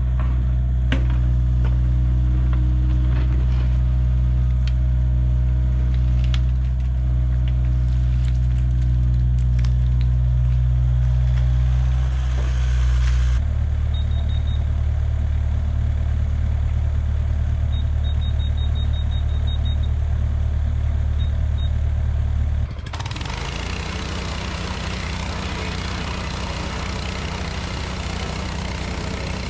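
Excavator's diesel engine running steadily while digging, with scattered clanks and knocks of the machine's metal parts in the first part. The engine sound shifts abruptly twice, once about halfway through and again near three quarters of the way through.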